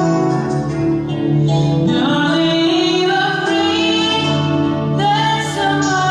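A song performance: a singing voice holding long notes over instrumental accompaniment.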